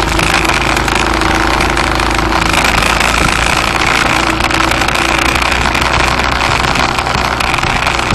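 Motor vehicle driving along a road: a steady engine hum under even road noise.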